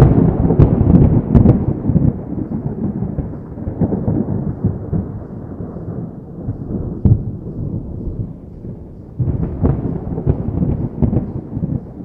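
Thunder: a loud crackling rumble that slowly dies away, a single sharp crack about seven seconds in, then another thunderclap rolling in about nine seconds in.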